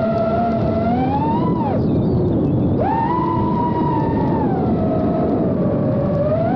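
FPV quadcopter's motors and propellers whining, the pitch rising and falling with the throttle, over a steady rushing noise. About two seconds in the whine dives and drops away for about a second as the throttle is cut, then sweeps back up to a high pitch and slowly sinks.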